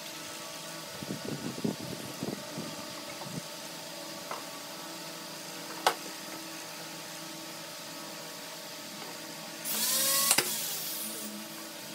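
Pneumatic nail gun firing into wood: a sharp crack with a short burst of air hiss near the end. Before it, light knocks from wooden pieces being handled and one sharp click, over a steady workshop hum.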